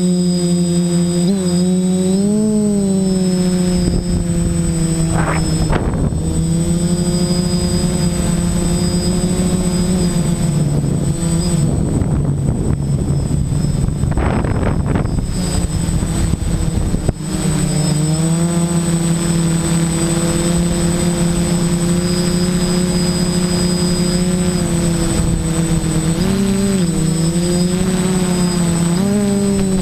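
Quadcopter's electric motors and propellers heard from its onboard camera, a steady loud hum whose pitch dips and rises briefly with throttle changes about two seconds in and again near the end. From about four to seventeen seconds a rushing noise of wind and propwash joins the hum.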